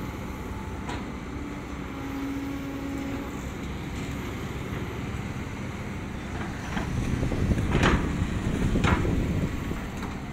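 Kobelco long-reach excavator running, its engine and hydraulics working as the bucket is lowered and dragged through the soil of the bank. Two louder scrapes come about a second apart in the last third.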